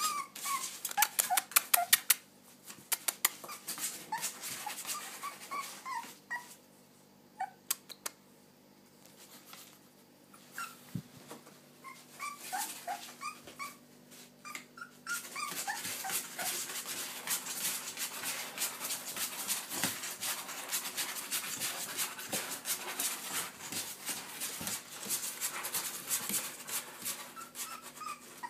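Springer spaniel puppy whimpering and yipping in short, high-pitched cries that come in bursts with a quiet stretch in between. Scratching and rustling from the cardboard box it is trying to climb out of runs under the cries, busiest in the second half.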